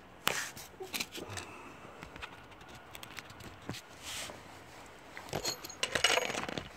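Scattered metallic clinks and short scrapes of hand tools being handled, with a quicker rattle of clinks about six seconds in.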